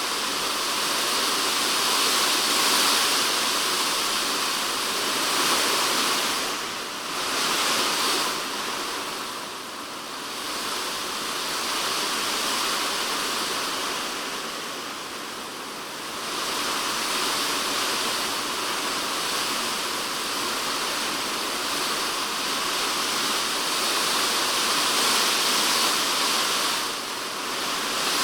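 Typhoon rain falling on a polycarbonate shed roof, heard from inside the shed: a dense, steady hiss that eases for several seconds in the middle and then swells back.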